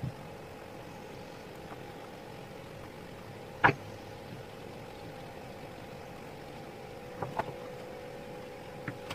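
A screwdriver and loose parts knocking against an old electric drill's housing as it is taken apart: one sharp click a little over a third of the way in, then a few lighter clicks near the end, over a steady background hum.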